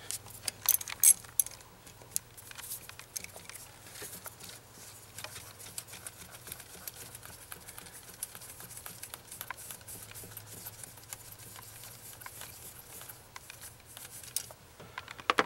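Small metallic clicks and ticks of fuel rail hold-down bolts on a 2.4L Ecotec engine being unscrewed and lifted out by hand, with a few sharper clicks in the first second and a half. A faint steady low hum sits underneath.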